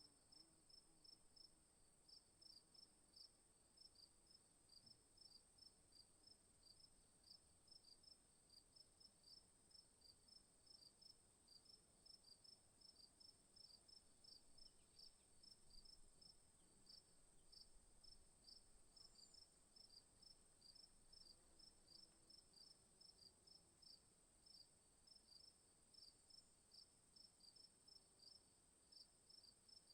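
Faint insect chirping, otherwise near silence: a steady high trill with a regular run of short chirps, about two or three a second.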